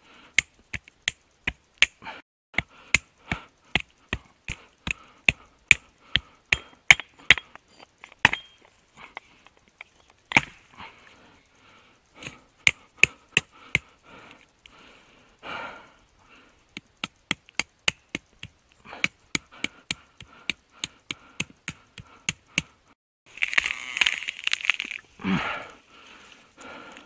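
Pocket knife blade chopping into a sapling's trunk: sharp wooden strikes about two or three a second, in runs broken by short pauses. Near the end a louder scraping noise lasts about two seconds.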